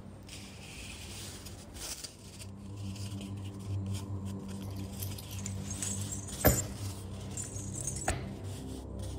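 A leather tool roll being unrolled, rustling, with the metal instruments inside clinking against each other; one sharp metallic clink a little past the middle is the loudest sound, with a smaller one about a second and a half later. A low steady drone runs underneath.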